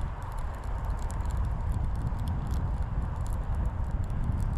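Wind buffeting the microphone in a steady low rumble, with faint, irregular ticks scattered through it.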